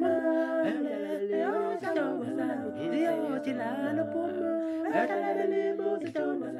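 One man's voice multitracked into four-part a cappella harmony, holding chords with a low bass line under moving upper parts.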